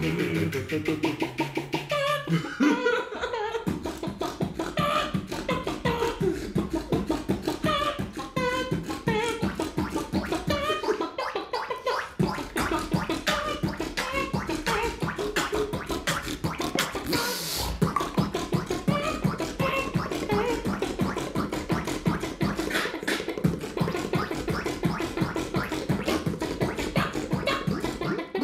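Human beatboxing: a fast, continuous run of mouth-made percussive clicks and beats, with warbling, pitched vocal sounds like record scratching layered over it.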